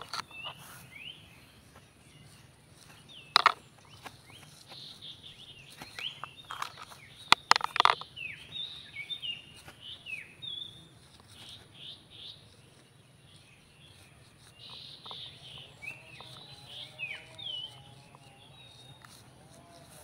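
Birds chirping in many short, falling calls. A few sharp rustling knocks, the loudest about three and a half and seven and a half seconds in, come from a stick poking through dry grass.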